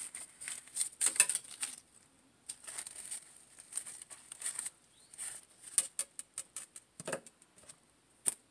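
Rustling and light crinkling of artificial fabric flowers and leaves as they are handled and wrapped with floral tape: a string of irregular soft scratches and taps, loudest about a second in, with one sharp click near the end.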